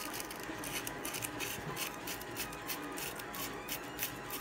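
3D-printed plastic parts handled and worked together by hand, making many light clicks and scrapes.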